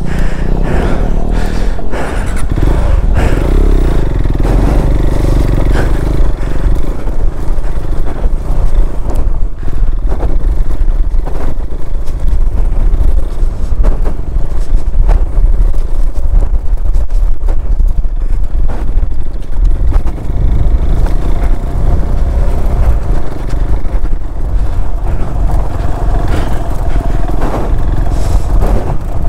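Motorcycle engine running as the bike rides slowly over a loose, stony riverbed, with stones clattering and scraping under the tyres.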